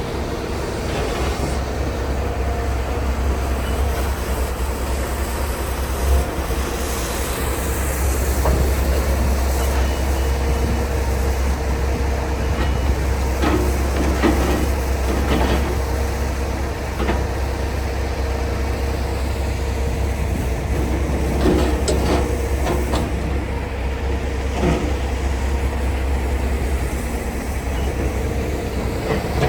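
Logging truck driving: a steady low engine and road drone with scattered rattles and knocks.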